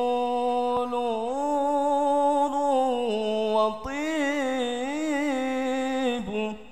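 Male lead singer of an al-Banjari group singing a slow, unaccompanied Arabic sholawat phrase in long held, ornamented notes with vibrato. He breaks for breath about four seconds in, starts the next phrase, and stops shortly before the end.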